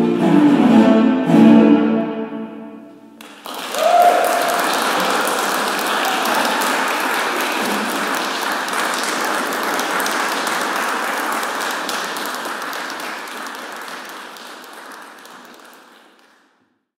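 A cello ensemble plays the last chord of the piece, which dies away about three seconds in. The audience then breaks into applause, with a brief cheer at its start, and the clapping fades out near the end.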